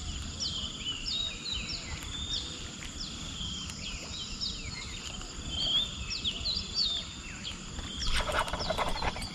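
A swamp chorus of many short, quick chirping calls overlapping one another, over a steady high insect whine. About eight seconds in, a burst of clicking and rustling joins in.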